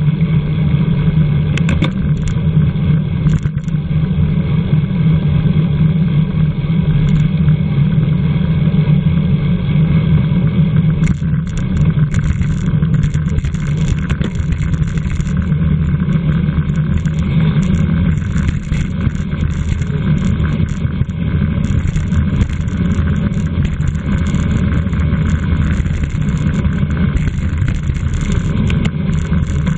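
Wind rushing over the microphone of a camera riding on a racing bicycle at speed: a loud, steady, low rumble with no break.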